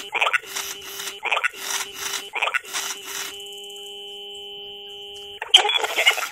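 Furby toy glitching with circuit-bent-sounding electronic noise: a rasping sound repeating about twice a second over a steady tone, then one held electronic tone for about two seconds, broken off by a loud noisy burst near the end.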